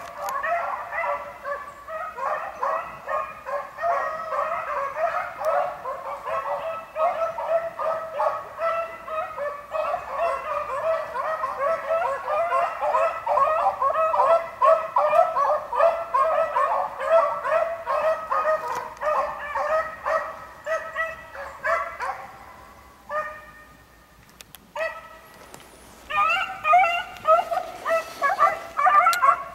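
A pack of beagles baying in full cry while running a rabbit, many voices overlapping. The chorus drops away for a few seconds about three-quarters of the way through, then comes back loud near the end.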